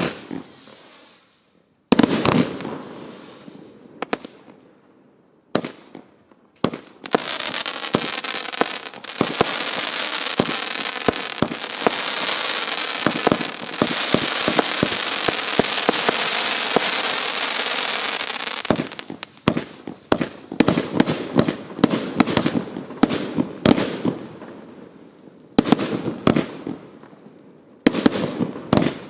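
Evolution Prometheus 72-shot compound firework cake firing: single loud bangs, each with a ringing tail that dies away over a second or two. About seven seconds in, a dense, continuous stretch of crackle and hiss runs for about twelve seconds, then separate shots and bursts resume.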